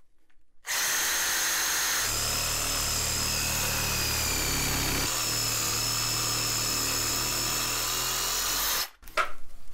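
Cordless reciprocating saw running steadily as its blade cuts through a Mora knife's hard plastic handle with its over-molded rubber layer. It starts about a second in, its tone shifts twice as the cut goes on, and it cuts off suddenly near the end.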